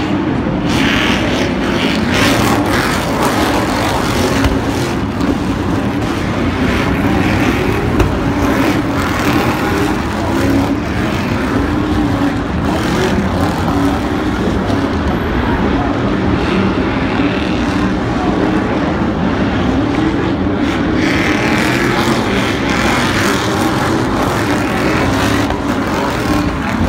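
Stadium Super Truck engines racing on a dirt track. The engines run loud and continuously, their pitch rising and falling as the drivers rev up and lift off.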